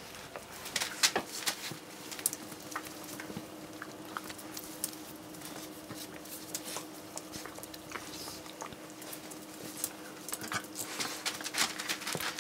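A Chihuahua-mix dog chewing, making irregular small clicks and crunches that come faster near the end, over a faint steady hum.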